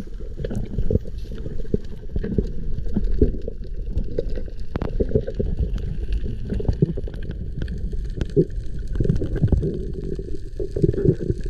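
Underwater sound picked up through an action camera's housing while diving on a reef: a muffled, uneven low rumble of moving water with scattered short clicks and crackles.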